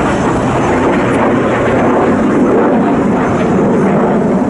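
Loud, steady engine noise from display aircraft flying overhead.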